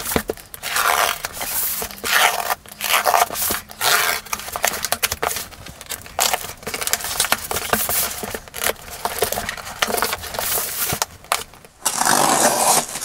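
Snap-off utility knife slicing through packing tape and cardboard on a shipping box: a run of short, irregular scraping cuts, with a longer continuous rustle near the end.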